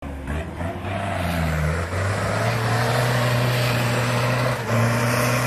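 Toyota 4x4's engine working hard under load as it claws out of a muddy pit. The revs climb about two seconds in and hold high, then dip briefly and rise again near the end.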